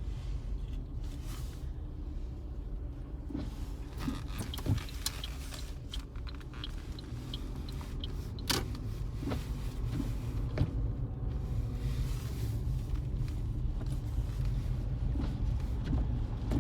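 A car driving slowly through snow, heard from inside the cabin: a steady low road rumble, with a few sharp clicks, the loudest about eight and a half seconds in.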